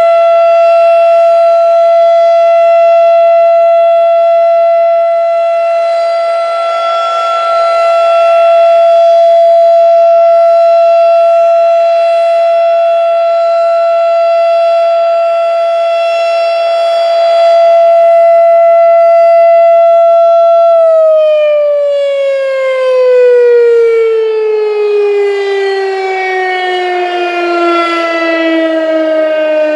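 A Federal Signal RSH-10 Thunderbeam, a three-phase electromechanical rotating siren, sounding a steady single tone for a monthly test, its loudness slowly swelling and fading. About two-thirds of the way in the tone stops being driven and the pitch falls steadily as the siren winds down.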